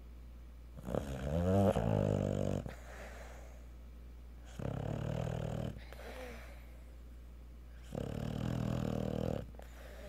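Cocker spaniel snoring in its sleep: three long snores a few seconds apart. The first is the loudest and wavers in pitch.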